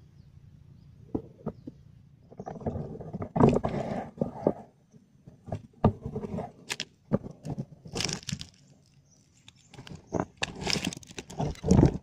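Rustling and clicking handling noise starting about two seconds in, irregular and loud at times: a woven plastic fishing bag being handled and opened on dry, leaf-strewn ground.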